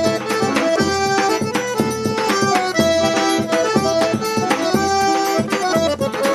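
Forró music in an instrumental break between sung verses: an accordion-led melody of held notes over a steady percussion beat.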